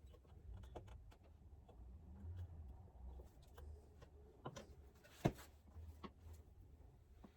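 Scattered light clicks and knocks of work being done by hand, the sharpest knock about five seconds in, over a faint low hum.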